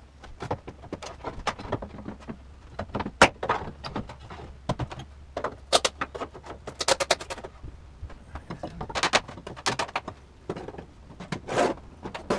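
A wrecking bar prying a wooden trim beam, held on with finish nails, off a bulkhead: irregular clicks, knocks and creaks as the wood and nails give, with one sharp knock about three seconds in.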